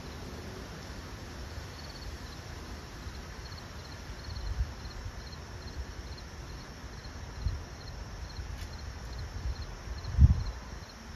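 An insect chirping in a steady pulse, about two to three short high chirps a second, over low outdoor rumble, with a few dull low thumps, the loudest about ten seconds in.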